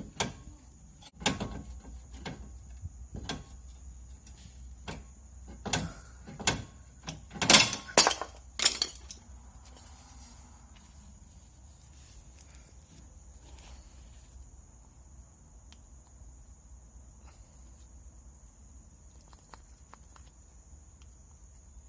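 A series of irregular knocks and clunks over the first nine seconds, the loudest three close together near the middle, then quiet with a faint steady high whine.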